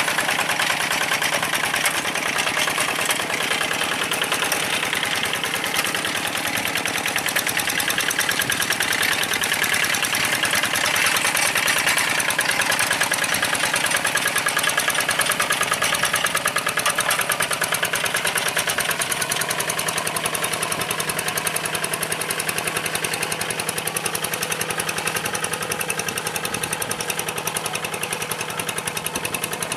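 Single-cylinder diesel engine of a two-wheel hand tractor running steadily with a rapid, even beat while it pulls a plough through wet paddy mud.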